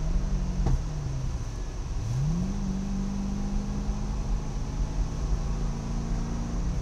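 Car engine heard from inside the cabin. The revs dip and come back up in the first second, with a sharp click about a second in. The revs then climb quickly about two seconds in and hold steady under throttle, over steady road and wind rumble.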